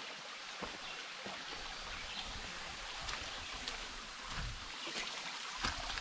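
Steady rush of a flowing woodland creek, with faint irregular ticks and crunches scattered through it.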